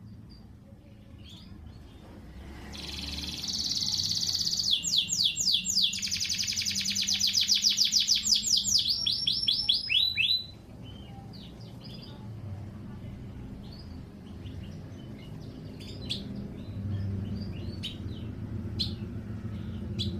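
Domestic canary singing: a long phrase of about eight seconds that opens on a held high trill and then runs into a fast series of repeated sweeping notes. It breaks off suddenly and is followed by scattered soft chirps.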